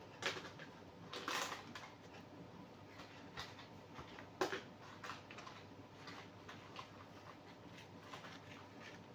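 Faint handling sounds of small items and packaging: a few soft rustles and light taps, the clearest around one and a half seconds in and again near the middle, over low room tone.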